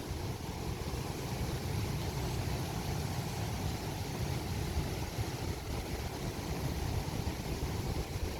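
Steady low rumble of sea surf and wind on the microphone, with no distinct wave break standing out.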